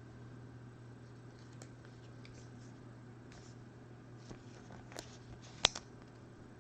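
Trading cards being handled and flipped through: faint rustles and light ticks with a sharp click about five and a half seconds in, over a steady low hum.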